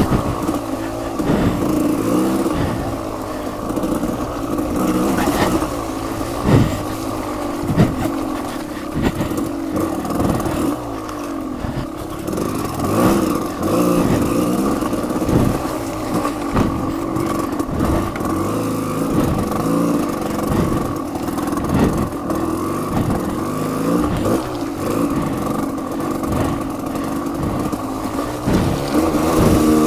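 Off-road vehicle engine running under changing throttle on a muddy trail, with frequent short knocks and rattles from riding over rough ground; the engine revs up near the end.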